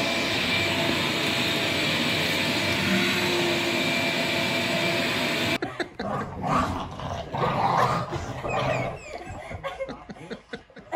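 A shop vacuum running steadily, stopping suddenly about five and a half seconds in. A small dog then barks in short bursts for a few seconds.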